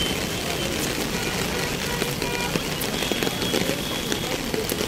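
Rain falling, a steady hiss.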